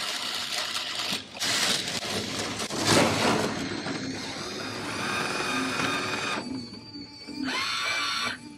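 LEGO roller coaster model running: plastic coaster cars rattling along plastic track, with electric motors whirring as they drive the rubber tyre wheels that push the cars.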